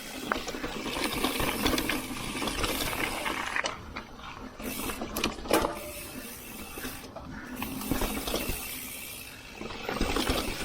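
Niner Jet9 RDO full-suspension mountain bike rolling over a rooty dirt trail: a steady rush of tyre and trail noise with scattered knocks and rattles as the bike hits roots.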